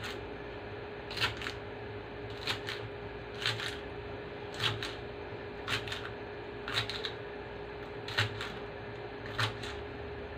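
Kitchen knife chopping pechay stems on a plastic cutting board: short knocks about once a second, some in quick pairs. A steady hum runs underneath.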